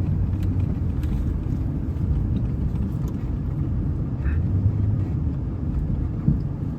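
Feed truck's engine running with a steady low rumble while the truck is maneuvered to line up on a hay bale.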